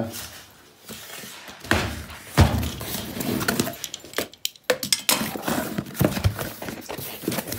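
A cardboard shipping box being opened by hand: irregular scraping and rustling of cardboard and tape as the flaps are pulled apart, with a couple of sharp knocks in the first few seconds and a short pause a little past the middle.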